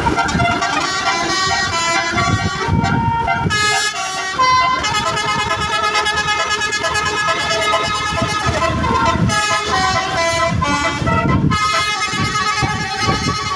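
Basuri telolet bus horn, a multi-trumpet horn set driven by a Zeta Project melody module, playing a tune in held chords of several tones that step from pitch to pitch, over a low, uneven rumble.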